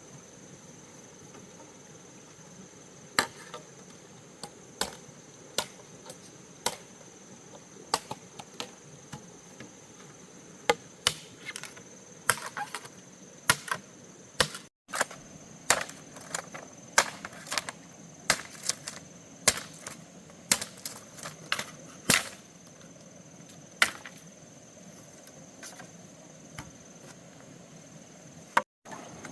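Repeated chopping strikes of a blade, sharp and irregular, about one to two a second, over a steady high insect drone.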